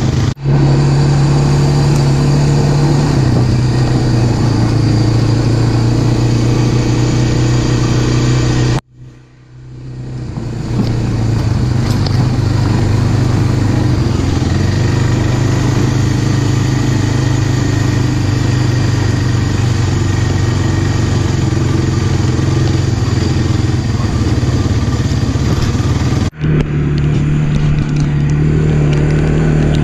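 ATV engine running under way, heard close up from the rider's seat as the quad is ridden along a dirt trail; the steady engine note shifts in pitch a few times with the throttle. The sound breaks off abruptly about a third of the way in, swelling back over a couple of seconds, and cuts out again for a moment near the end.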